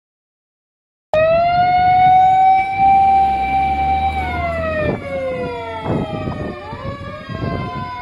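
Fire engine siren wailing loud, cutting in suddenly about a second in: a held tone that slides down partway through, with a second, rising siren tone crossing it near the end.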